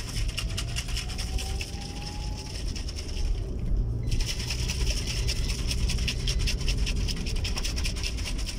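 Plastic shaker bottle shaken hard to mix protein powder into a drink, a fast rattling in two bouts with a short break about three seconds in.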